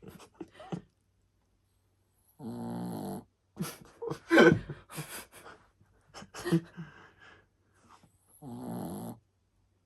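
Shih Tzu snoring: two long buzzing snores, one a couple of seconds in and another near the end. Louder short irregular sounds come in between.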